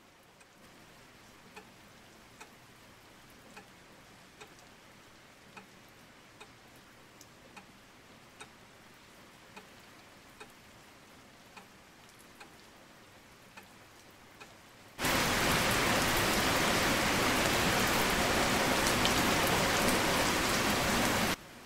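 A clock ticking faintly, about once a second. About fifteen seconds in, a loud, even, rain-like hiss starts abruptly, runs for about six seconds, and cuts off suddenly.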